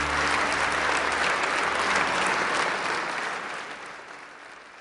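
Audience applauding, dying away over the last second or two.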